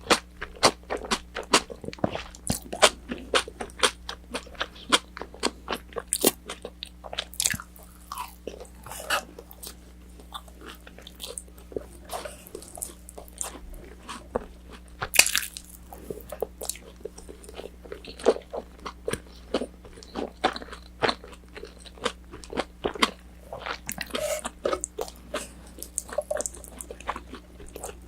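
Close-miked eating: a person biting and chewing crispy battered orange chicken, with frequent irregular crunches and clicks, the loudest bite about halfway through. A low steady hum runs underneath.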